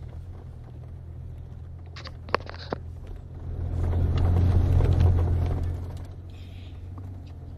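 Lifted Jeep on 40-inch mud-terrain tyres crawling a rocky dirt trail, its engine running with a steady low drone. The drone swells louder for about two seconds in the middle and then settles. Two sharp ticks come a little after two seconds in.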